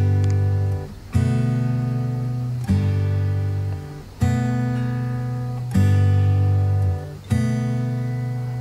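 Background music on acoustic guitar: a strummed chord about every second and a half, each left to ring and fade before the next.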